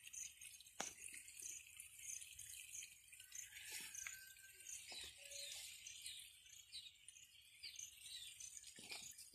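Near silence: faint outdoor field ambience with a soft high hiss, scattered faint high chirps and a few light clicks.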